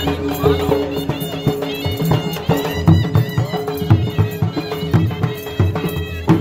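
Traditional folk music: dhol drums beating a quick rhythm while a wind instrument plays a melody over a steady drone.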